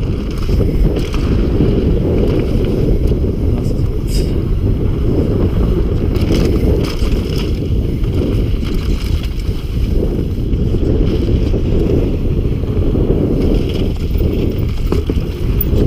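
Wind buffeting an action camera's microphone at downhill mountain-bike speed, a loud steady low rumble, with scattered clicks and rattles from the bike running over gravel and dirt.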